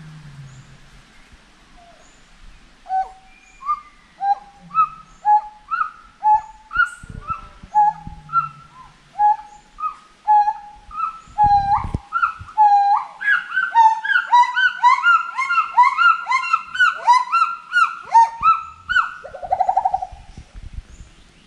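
Gibbons singing: a long series of upward-swooping calls that come faster and climb in pitch, then crowd together into a dense, overlapping climax from about the middle on, ending in a short bubbling trill near the end.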